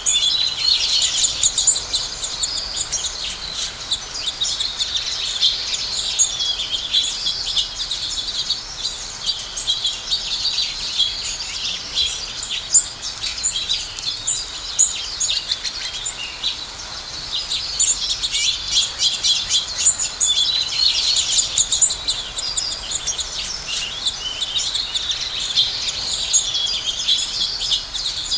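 House sparrows chirping continuously, many short overlapping chirps from several birds at once, busiest near the start and again about two-thirds of the way through.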